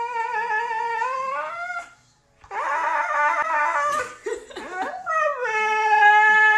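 Siberian husky howling: a long, steady howl rises in pitch and breaks off about two seconds in. After a brief pause comes a rougher, wavering stretch of yowling, then a howl that slides down in pitch and holds steady.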